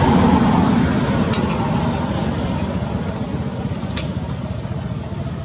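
A steady low motor rumble, like an engine running, slowly fading, with two sharp clicks about a second and a half and four seconds in.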